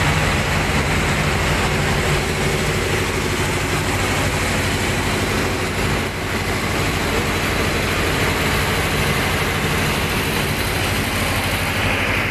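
Marine diesel generator running steadily under electrical load at 1,500 rpm, a loud, even engine-room drone with a constant low hum.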